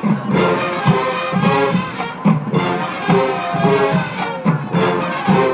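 HBCU marching band playing, brass to the fore, a loud tune with a strong rhythmic pulse.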